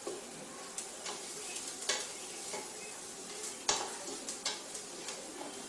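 Onions sizzling as they caramelize in a stainless-steel pot, stirred with a utensil that scrapes and knocks against the pot at irregular moments, a few of the knocks sharper than the rest.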